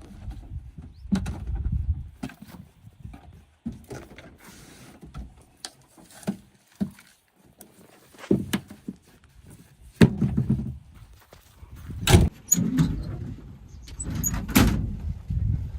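JCB 3DX backhoe loader at work: irregular clanks, knocks and squeaks from the bucket and arm, with bursts of low rumble. Three sharp, loud knocks come in the second half.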